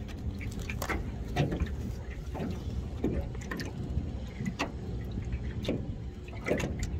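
Handling noise from unhooking a small summer flounder that has swallowed the hook: scattered short clicks and rustles of the rag, line and fish in the hands, over a steady low rumble.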